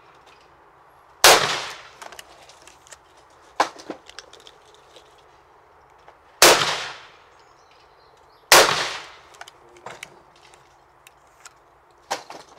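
Side-by-side hammer shotgun firing at clays: a single loud shot about a second in, then a pair of shots about two seconds apart past the middle, each with a short echoing tail. A quieter sharp crack comes between them, and light mechanical clicks follow the pair as the gun is opened.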